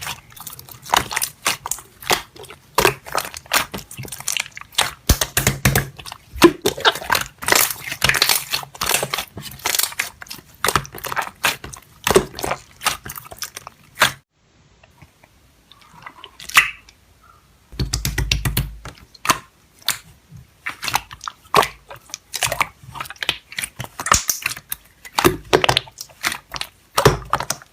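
Slime being pressed and worked by hand: a dense run of sticky clicks and crackles. They stop for a few seconds past the middle, there is a brief low rumble, and then the clicking starts again.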